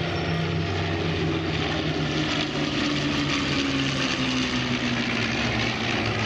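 Piston engines of a low formation flypast, a B-25 Mitchell's twin radial engines with two single-engine piston fighters, droning steadily. One tone in the drone slowly falls in pitch across the pass.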